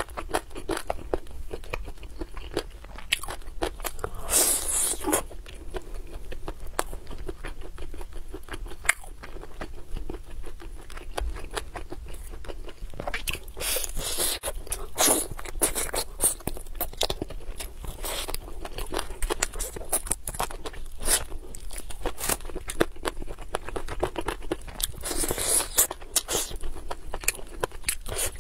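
Eating roast chicken legs, biting and chewing the meat off the bone with many small wet mouth clicks. Louder bites come about four, fourteen and twenty-five seconds in.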